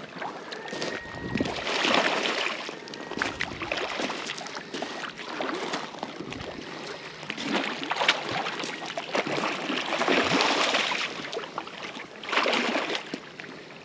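Rushing, splashing water that swells and fades every few seconds, with scattered short knocks.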